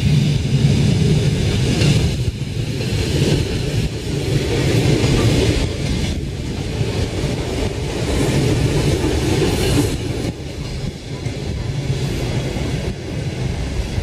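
Electric commuter train passing close by: a steady rumble of wheels on the rails with clickety-clack over the rail joints, swelling and dipping a few times as the carriages go past.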